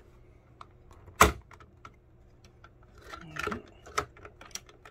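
Clicks and knocks of the 3D printer's plastic display housing being handled and fitted back onto the printer. There is one sharp knock about a second in, then a cluster of lighter clicks near the end.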